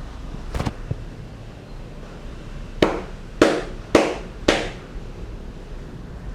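Percussive hand strikes of an Indian barber's massage: four loud slaps about half a second apart a little before the middle, after a lighter pair of taps about half a second in. A steady background noise underlies them.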